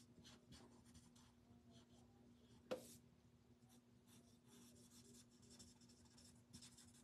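Faint scratching of a Stampin' Blends alcohol marker tip drawn over cardstock in short colouring strokes, with one sharp click a little under three seconds in and a steady low hum.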